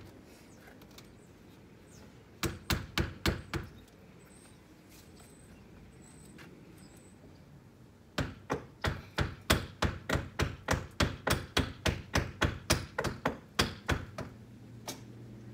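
Hammer driving nails into a window frame. A short run of about five strikes comes a couple of seconds in, then a longer, steady run of strikes at about three a second lasts for some six seconds before stopping.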